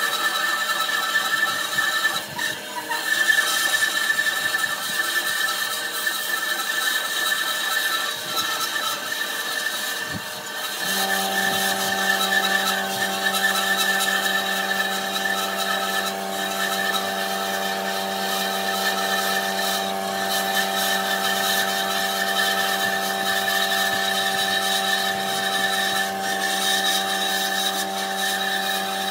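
Bandsaw running and cutting a curve through a thick block of wood, a steady machine whine from the blade and motor. About eleven seconds in, a lower steady hum joins it.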